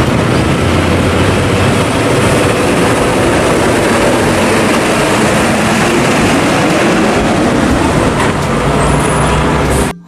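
Fuel tanker truck driving on a road: steady engine rumble and road noise.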